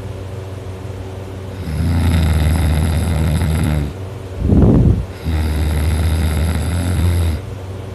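A teenager's loud snoring while asleep. There are two long, low, droning snores of about two seconds each, with a short, louder rush of breath between them.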